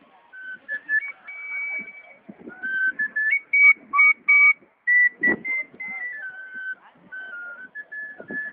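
A tune whistled in clear, pure notes that step up and down between held pitches, with one thump about five seconds in.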